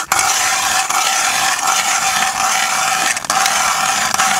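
Ice auger cutting down through lake ice while boring a test hole, a steady scraping grind of the blades shaving ice, broken by a few brief pauses.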